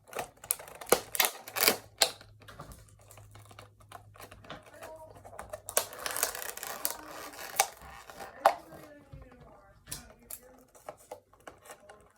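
Irregular clicks, taps and crinkling of a toy car's plastic-and-cardboard packaging being worked open by hand, with a longer scraping rustle about six seconds in.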